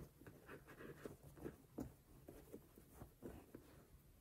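Faint rustling and scraping of flat woven shoelaces being handled and pulled through a sneaker's eyelets: a string of small, soft scrapes.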